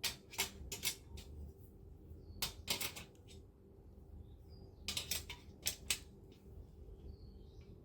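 Sharp clicks and light knocks of hard parts being handled, in three short clusters of quick clicks.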